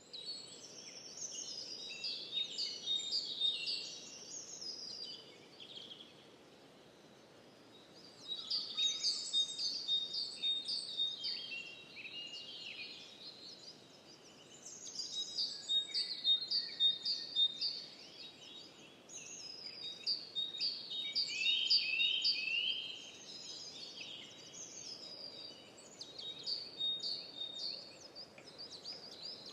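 Birds singing and chirping in fast runs of high, quick notes, in several phrases of a few seconds each with short pauses between, over a faint steady background hiss.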